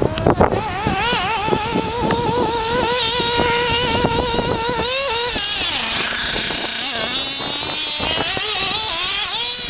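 Nitro-powered RC buggy's small two-stroke glow engine running at high revs with a high-pitched note that wavers up and down with the throttle; the engine is not yet tuned. About five seconds in the high note breaks off and the engine note turns lower and more unsteady.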